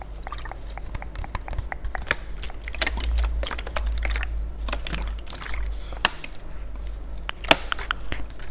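Close-miked ASMR trigger sounds: a dense, irregular run of sharp clicks and crackles over a steady low rumble.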